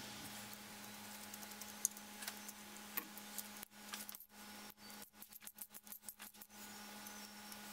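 Faint metallic ticking of a socket ratchet tightening the cam sprocket bolts on a GM LS V8: a few scattered clicks at first, then a quicker run of clicks in the middle, over a steady low hum.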